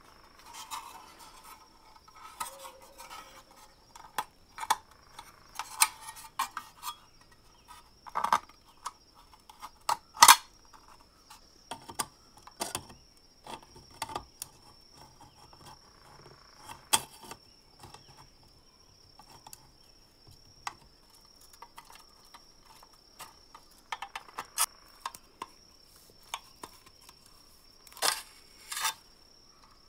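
Sheet-metal parts of an old lamp housing being handled and taken apart with hand tools: scattered metallic clicks, clinks and knocks, the loudest knock about ten seconds in and two sharp clicks close together near the end.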